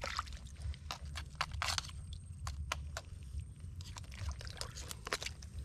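Irregular wet squelching and sharp clicks of mud being worked by hand while digging out a mud crab, over a steady low rumble.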